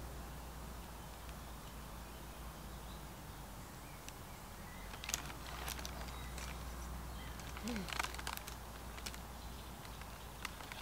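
Rustling with a cluster of sharp crackles about halfway through, over a steady low rumble, with a few faint bird chirps.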